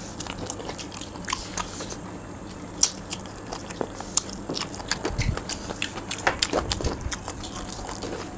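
Close-up eating sounds: biting and chewing on a chicken leg piece, with many scattered wet clicks and smacks, and fingers mixing rice on a steel plate. A couple of soft low thumps come about five and seven seconds in.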